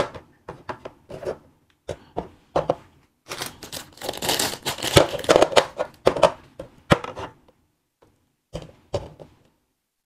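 Plastic wrapping crinkling and tearing as wax candies are unwrapped, with short light taps as the candies are set down one by one on a tray.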